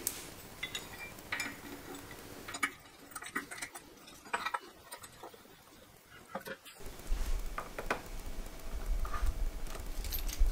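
Light metallic clicks and clinks of an Allen key, nut and bolt being handled and turned while a metal bracket is fastened to the end of a light bar. A low rumble comes in about halfway through.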